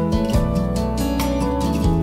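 Background music led by plucked acoustic guitar, with notes changing every half second or so.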